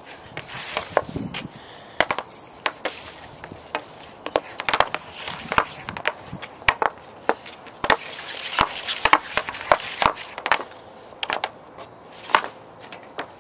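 Hockey stick blade and puck clacking and scraping on a homemade shooting pad: many irregular sharp clacks, with stretches of scraping as the puck and blade slide across the pad.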